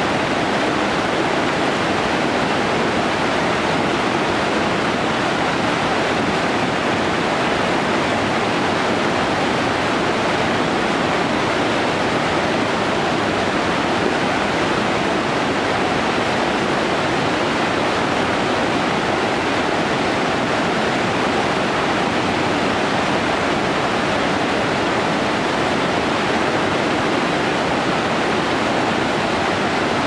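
Small waterfall cascading over rocks: a steady, unbroken rush of falling and splashing water.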